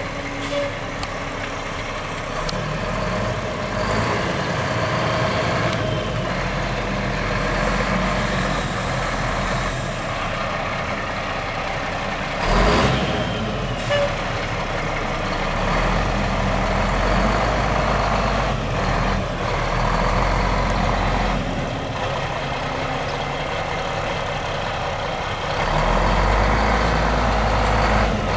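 Mack E7 12-litre inline-six diesel of a 1993 Mack CH613 truck running as the truck drives slowly at low speed. A brief loud burst of noise comes about halfway through, with a smaller one just after, and the engine gets louder near the end.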